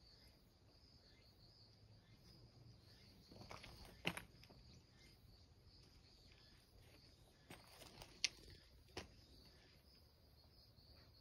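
Insects chirring steadily in a constant high, thin drone. A few brief clicks and rustles cut through it about four seconds in and again around eight to nine seconds, the sharpest a single click just after eight seconds.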